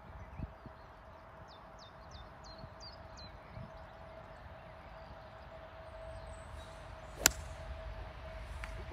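A golf club strikes the ball once, a single sharp crack about seven seconds in, just after the faint swish of the swing. Before it, a small bird calls a quick run of short falling chirps.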